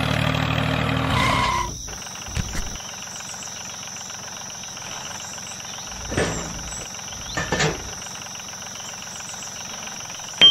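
A toy tractor's motor runs steadily and cuts off suddenly about a second and a half in. Then come small plastic handling knocks as a trailer hitch is fitted to the tractor, ending in a sharp click as the pin goes in.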